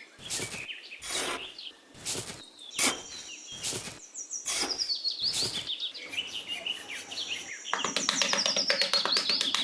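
Birds chirping, with a falling run of high chirps in the second half, over short rasping strokes that repeat about once or twice a second. Near the end a fast patter of clicks joins in.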